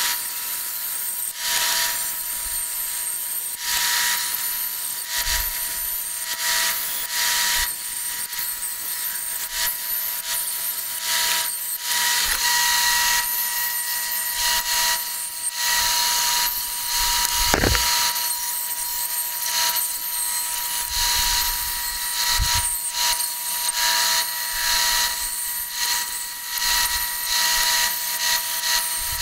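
Band saw running with a steady motor whine while its blade cuts a thin sheet along a traced line. The cutting noise swells and eases as the piece is fed and turned.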